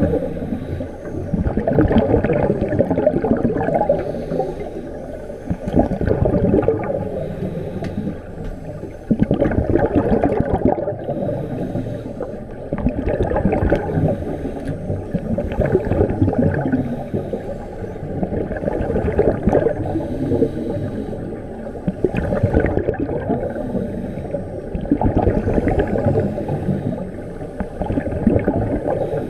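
Scuba divers' breathing heard underwater: rushing, gurgling bubbles of exhaled air from regulators, swelling every two to three seconds.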